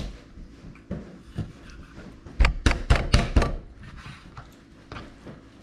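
Knife chopping through chicken pieces on a cutting board: scattered knocks, then a quick run of about six hard strikes in the middle.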